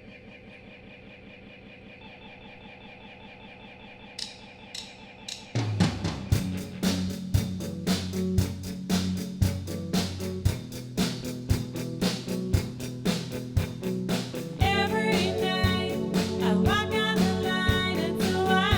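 A rock band playing live. A guitar plays alone at first, then the drum kit and bass come in with a steady beat about five seconds in, and a further melodic line with sliding notes joins near the end.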